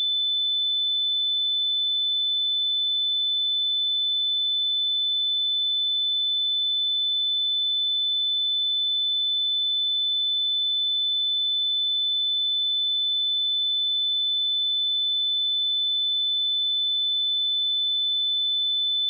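Pure 3512 Hz sine-wave test tone, one steady high-pitched tone held at constant level throughout.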